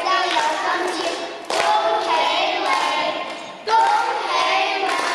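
A small group of young children singing a song together into microphones, in phrases with held notes; new phrases start about a second and a half in and again near four seconds.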